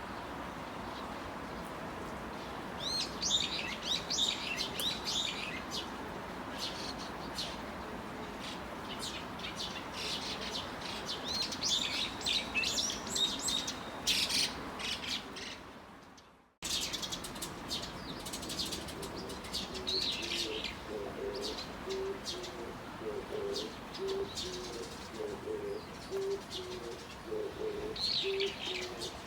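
Steady rush of rain and water in an irrigation channel, with small birds chirping over it. The sound fades out and cuts back in about halfway, and after that a dove coos in a steady run of low repeated notes.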